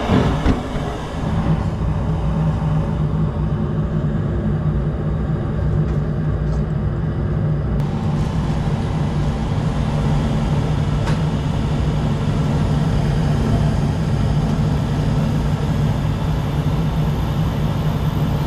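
York gas furnace running at high fire during a gas-pressure check: a steady hum with a strong low tone, from the burners and fan motors, with a brief knock right at the start.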